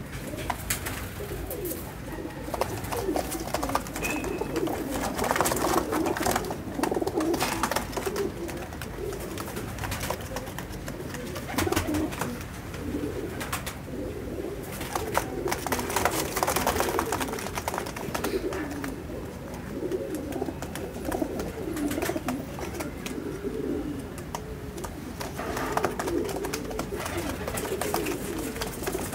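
Several Rampuri domestic pigeons cooing over and over, their low warbling calls overlapping throughout, with short scratchy noises now and then.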